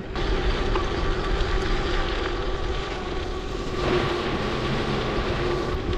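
Oraimo Monster 100 e-bike's 350-watt electric motor whining steadily at full throttle near its 20 mph top speed. Wind rush on the microphone and tyre noise on a dirt path run underneath.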